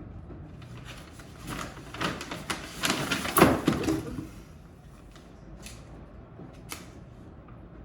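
Indoor handling sounds: a cluster of clicks and crackly rustling from about one to four seconds in, then a few single clicks.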